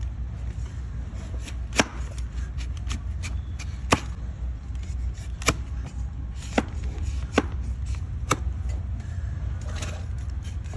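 A hoof-trimming blade cutting into a donkey's overgrown hoof horn: a run of sharp, crisp cutting snaps, the loudest coming roughly once a second, with fainter scrapes between them.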